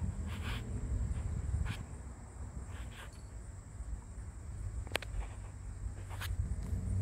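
Outdoor ambience: a low rumble of wind or handling on the microphone, a faint steady high insect-like hum, and a few scattered sharp clicks.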